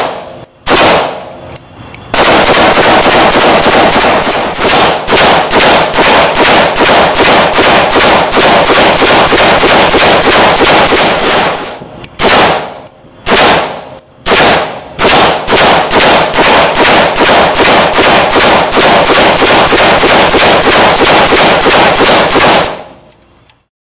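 Polish AK-47 underfolder rifle in 7.62x39 firing in an indoor range: a couple of single shots, then a long string of rapid shots for about ten seconds. After a few spaced single shots comes a second long rapid string, which stops about a second before the end.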